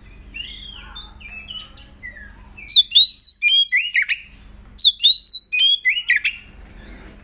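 Oriental magpie-robin singing: a few soft chirps, then two loud, nearly identical phrases of sharp whistled notes, each about a second and a half long.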